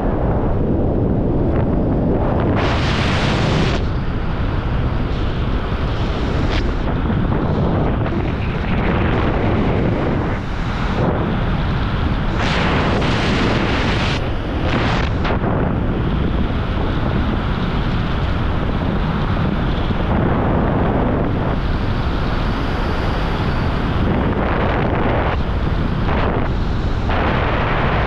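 Wind buffeting the microphone while descending under an open parachute canopy: a steady rushing noise with louder gusts about three seconds in, through the middle, and again near the end.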